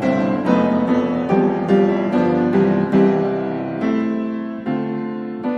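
Background piano music: a steady run of single notes, each struck and fading.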